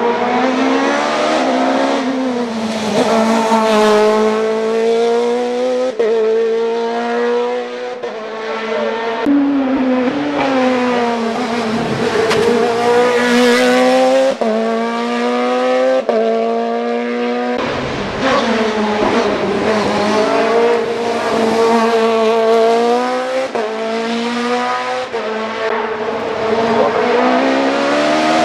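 Norma M20 F racing prototype's engine at high revs, its pitch climbing hard through each gear and dropping sharply at every shift, over and over as the car climbs.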